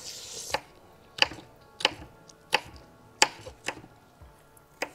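Kitchen knife chopping chilies on a wooden cutting board: about seven sharp knife strikes against the board, spaced roughly two-thirds of a second apart.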